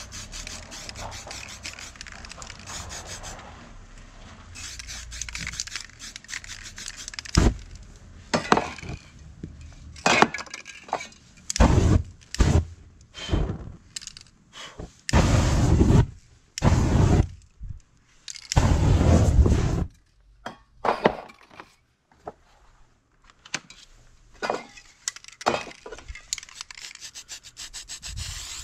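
Spray-paint art at work: aerosol spray cans hissing in short bursts and a few second-long sprays, among knocks and scrapes of cans and stencils against the painting board.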